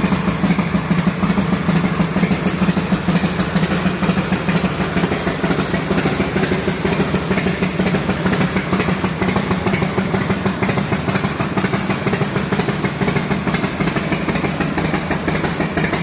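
Yamaha XV1600 Wild Star's air-cooled V-twin idling steadily through Roadkrome headers and a Speedproducts aftermarket muffler, with an even, pulsing exhaust note.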